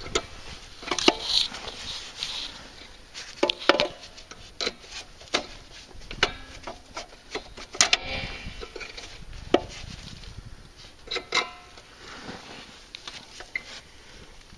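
Irregular metallic clicks, knocks and scraping as the snow blower's drive cable and its spring are worked loose by hand, with a longer rattling scrape about halfway through.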